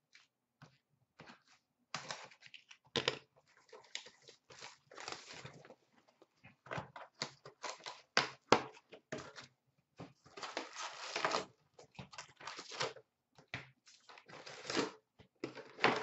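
Hands tearing open a sealed cardboard box of SP Authentic hockey card packs and pulling the packs out: irregular bursts of tearing, crinkling and rustling packaging, starting about two seconds in after a few light clicks.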